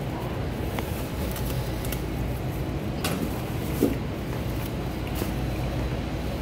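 Steady low background noise of a large store interior, with a few faint clicks and one short, loud knock about four seconds in.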